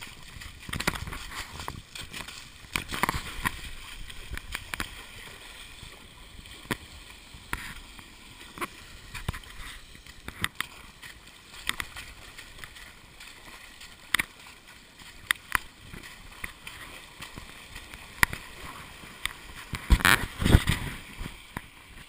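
Rush of a swollen, muddy stream with irregular splashes and knocks as someone moves through the water, the loudest burst of splashing near the end.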